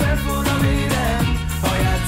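Upbeat dance-pop song with a steady electronic beat about twice a second and synth bass, with a male voice singing over it.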